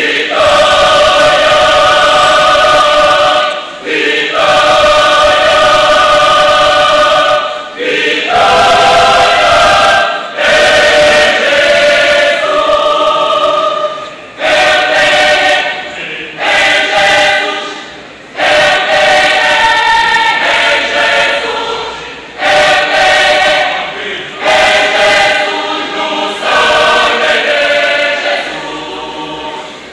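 Mixed choir singing in held chords, phrase by phrase, with short breaks between the phrases every few seconds.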